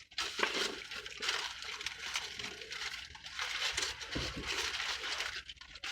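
Close-up wet chewing and lip smacking while eating a cheesy burrito, with irregular crackly clicks throughout.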